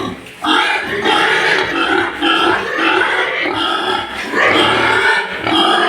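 A group of white farm pigs squealing and grunting loudly, their calls overlapping almost without a break after a brief lull at the very start.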